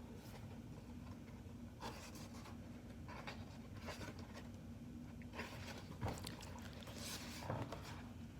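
Faint rustling and brushing of paper as the pages of a picture book are handled and turned: a few soft strokes, busiest in the second half, over a steady low hum.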